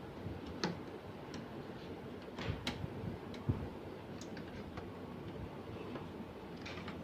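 Irregular light clicks and knocks of plastic printer parts being handled, as the pickup roller clips inside a Canon LBP6000 laser printer are worked loose.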